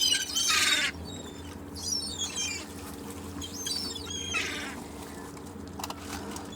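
Gulls calling in repeated bursts of squawks, loudest in the first second and again around two and four seconds, over a steady low background.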